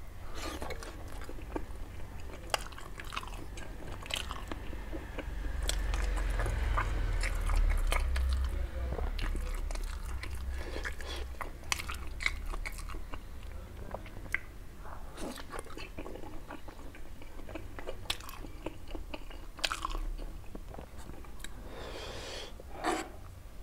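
Close-miked chewing and biting of steamed chicken momos, with many short wet mouth clicks. A low rumble comes in between about six and nine seconds in.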